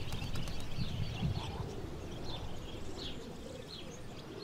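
Birds calling in short, scattered chirps over a faint outdoor background.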